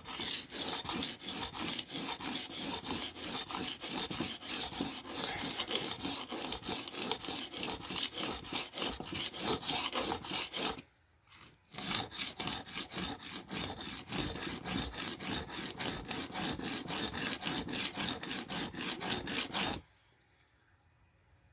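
Steel knife blade scraping back and forth on the coarse side of a cheap whetstone, in a fast, even run of sharpening strokes. The strokes pause briefly about halfway through, then resume and stop shortly before the end.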